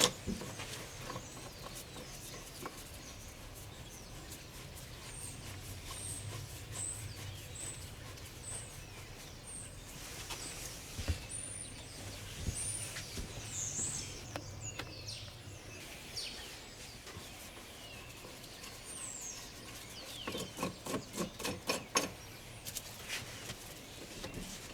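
Birds calling in the background: a short high chirp repeated about every two-thirds of a second for several seconds, then more varied, sliding calls. A quick run of clicks sounds near the end.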